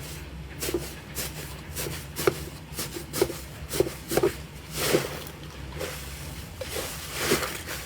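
Slime being squished, giving short wet pops and squelches about twice a second.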